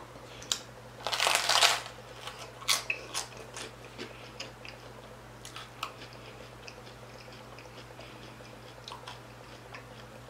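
A loud crunching bite into a crisp fried pork-skin (chicharron) tostada about a second in, then chewing with sharp crunches that come less often as the mouthful breaks down.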